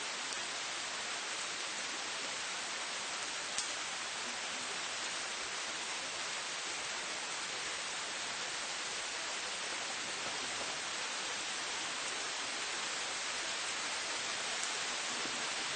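Steady rain falling on city streets: an even, hissing wash of drops, with one sharp tick about three and a half seconds in.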